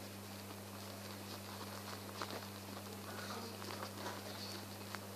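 Quiet room tone: a steady low electrical hum, with a few faint scattered clicks and taps.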